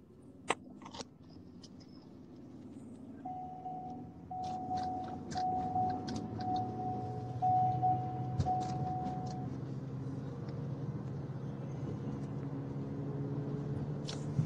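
Car engine hum inside the cabin, growing louder, with a dashboard warning chime beeping six times at about one a second and a few light clicks and rattles.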